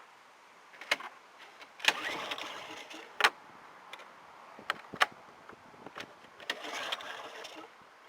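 A small Alton AT04141 suitcase generator being pull-started. There are two pulls on the recoil starter, each a short rasping rush about a second long, with sharp clicks and knocks between them. The engine has not yet caught.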